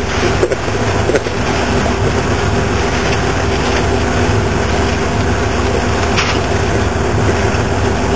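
Boat engine running steadily under way, a constant low hum under a steady rush of wind and water noise.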